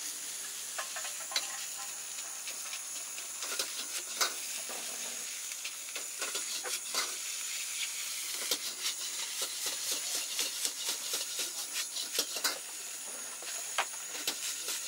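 Food sizzling in a wok over a high flame with a steady hiss, while a metal ladle scrapes and clanks against the wok again and again as the cook stir-fries; the clanks come thickest in the second half.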